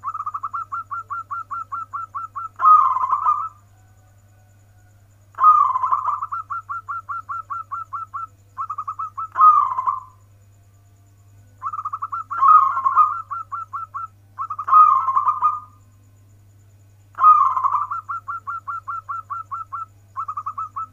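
Zebra dove (perkutut) singing, local 'warung kebek' style: four phrases of rapid staccato coos, about seven notes a second, mixed with louder, longer rolling coos, with short pauses between the phrases.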